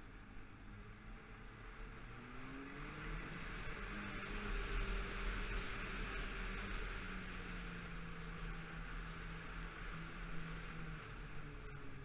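Snowmobile engine running while riding along a snowy trail. Its note rises briefly about two seconds in and then holds fairly steady, under a rushing hiss that swells in the middle.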